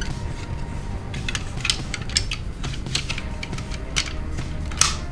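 Hard plastic toy parts clicking as the segmented tail of an alligator zord toy is handled and snapped onto its body: a series of sharp, irregular clicks, the loudest near the end, over a low steady background.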